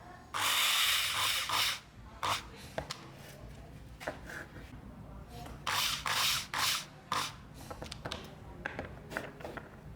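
Abrasive scraping strokes made by hand over a surface: a long hissing stroke of about a second and a half near the start, two or three longer strokes around the middle, and short scrapes in between.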